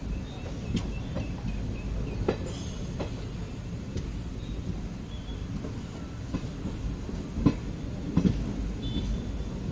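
Train rolling into a station: a steady low rumble with irregular sharp clacks of the wheels over rail joints, the loudest about three-quarters of the way through.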